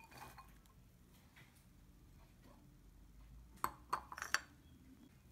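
Chopped onion tipped from a small bowl into a ceramic mixing bowl, with a quick run of three or four light clinks of bowl against bowl a little past the middle.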